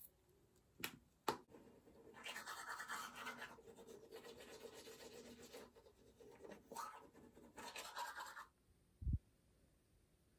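Brisk, rhythmic scrubbing that runs for about six seconds, preceded by two sharp clicks and followed by a single low knock.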